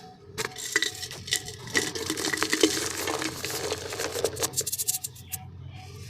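Dry, dusty black mud dirt crumbling in a clay pot: a dense run of crunching and gritty crackling, full of sharp ticks, from about half a second in until near the end.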